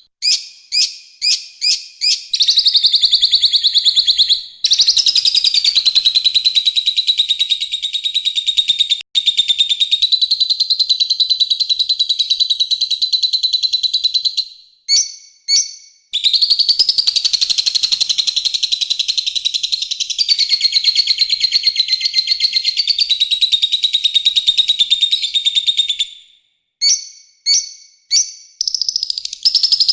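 Recorded songbird tutor song (masteran): long, dense, harsh trills of very fast repeated notes, each held for several seconds, broken by short runs of four or five separate chirps at the start, about halfway through and near the end.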